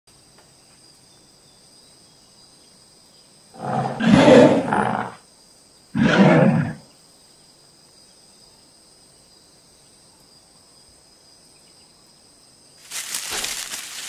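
Dinosaur roar sound effects: two growling roars, the first about a second and a half long, the second shorter, and near the end a harsher, hissing call.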